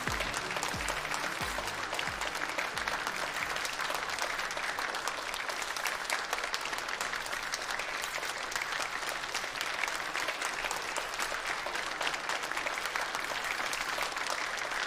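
Audience applauding steadily: many hands clapping in a dense, even patter.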